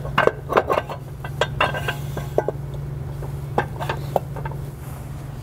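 Metal clinks and knocks as the secondary clutch of a Polaris RZR XP Turbo is worked onto the input shaft, many in the first two and a half seconds and a few more around four seconds in.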